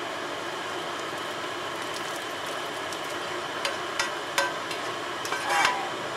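Metal spoon scraping and clinking against a frying pan as cooked chicken pieces are tipped into a pot of broth, with a few sharp clinks in the second half over a steady background hiss.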